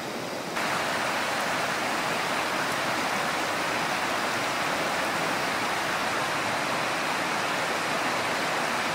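A river rushing steadily, an even hiss of flowing water; it gets louder about half a second in.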